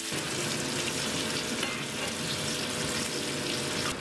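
Smoked butter sizzling steadily in a hot pan.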